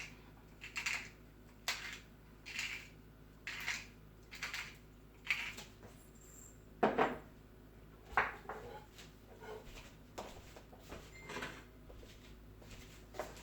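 Black pepper being added to marinating pork: short dry rasps about once a second, then two louder clinks of utensil or dishware around the middle, and fainter rasps after.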